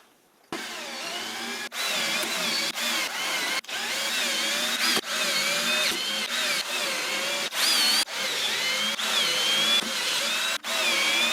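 Power drill driving screws, its motor whine rising and falling in pitch as it runs and slows under load. The whine breaks off abruptly several times.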